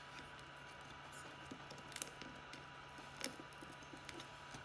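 Faint clicks and crackles from small parts of a DJI Mini 2 drone being handled and sticky adhesive being peeled, with two sharper clicks about two and three seconds in, over a steady low hum.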